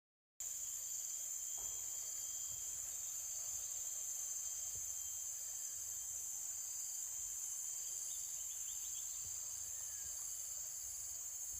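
Steady high-pitched chorus of insects chirring in the vegetation, a constant shrill drone with faint pulsing.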